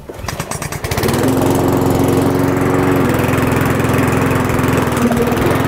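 Cobra MX460SPC self-propelled petrol lawn mower's OHV engine being pull-started from cold after priming: it catches about a second in and settles into a steady run.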